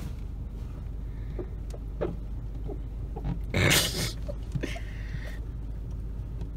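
Low steady hum of a parked car's engine running, with a finger rubbing on the fogged inside of the side window and a few light ticks. A short breathy burst about three and a half seconds in is the loudest sound.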